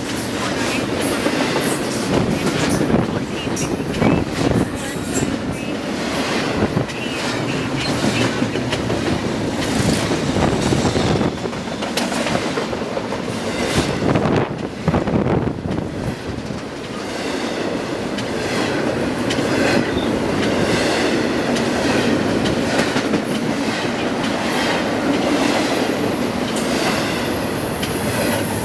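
Double-stack intermodal container train passing close at speed: a steady rumble and rattle from the loaded well cars, with wheels clicking and knocking over the rail joints again and again.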